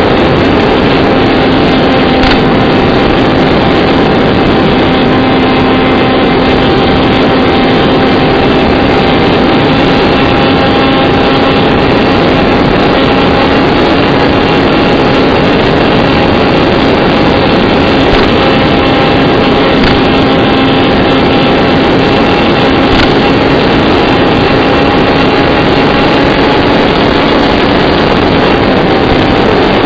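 Electric motor and propeller of an RC flying wing running at a steady throttle, a constant tone under loud rushing wind noise.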